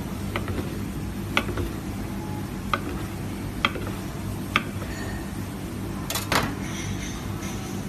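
A knife blade knocking sharply on a wooden cutting board about five times, roughly a second apart, as a meat roll is sliced, over a steady low hum. A short scraping or rustling noise comes about six seconds in.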